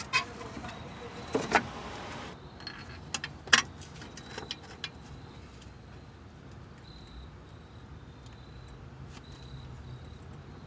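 Metal tools and parts clinking during hand work on the Jeep's front end: a few sharp clinks, the loudest about three and a half seconds in, then a handful of lighter ticks before it goes quiet.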